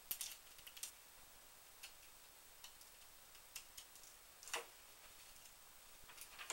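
Faint, irregular small clicks and light taps as a thin metal cutting die and a pointed hand tool are handled and set against cardstock on a magnetic die-cutting platform, the loudest tap about four and a half seconds in.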